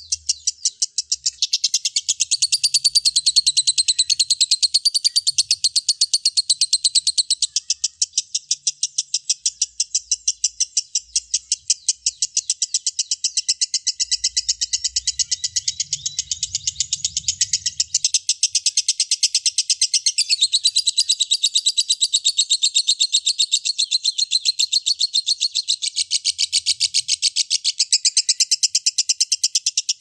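Lovebird singing a long, unbroken, high-pitched chattering trill of fast, repeated notes.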